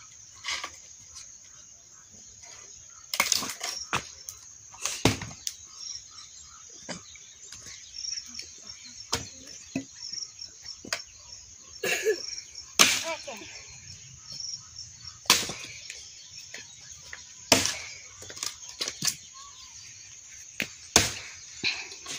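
Axe chopping into a wooden log to split it for firewood: sharp, irregular strikes a few seconds apart, about half a dozen of them loud.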